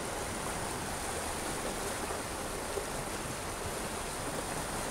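Steady rush of flowing creek water.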